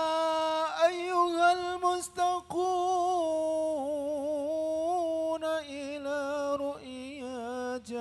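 A man singing an Arabic sholawat solo into a microphone, drawing the words out in long held notes decorated with quavering, trilling turns.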